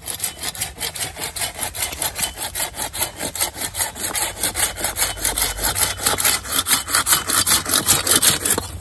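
A hand pruning saw cutting through a straight-grained tree branch in rapid back-and-forth strokes, about three a second, then stopping near the end.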